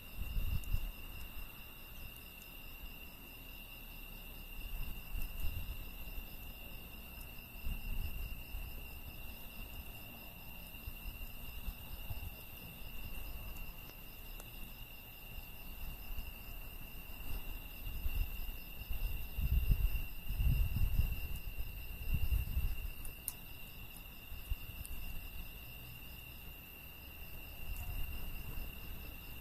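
Crickets chirring steadily in a continuous high chorus, with irregular low rumbles that swell and fade, loudest about two-thirds of the way through.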